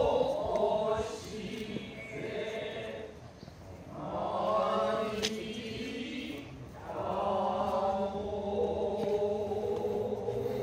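Noh chant (utai), sung in long drawn-out phrases with short pauses between them. There is a single sharp knock about five seconds in.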